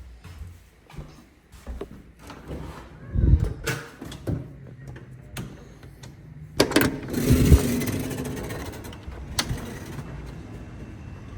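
Scattered knocks, clicks and rustles of movement, with low thumps and a longer rushing noise a bit over halfway through, the loudest part.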